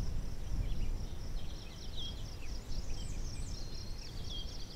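Small birds singing, with rapid high chirps and twittering trills that grow busier about a second and a half in, over a low rumbling noise.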